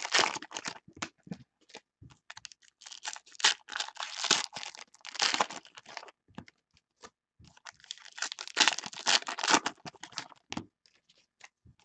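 A stack of 2015 Panini Contenders baseball cards being flipped through by hand: the cards slide and snap against each other in irregular clicks and rustles, in three spells with short lulls between.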